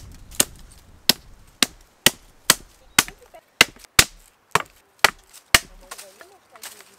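Small wooden-handled axe chopping a thin branch laid across an old log: a run of sharp wooden strikes, about two a second, stopping about five and a half seconds in.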